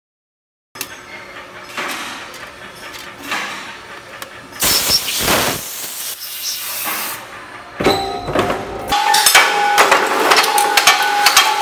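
Press-shop machinery working sheet steel: irregular clinks and clanks of steel plates being handled and pressed, starting about a second in, with a loud burst of hiss about halfway through. In the last few seconds a steady whine comes in under quick, irregular metallic clicking.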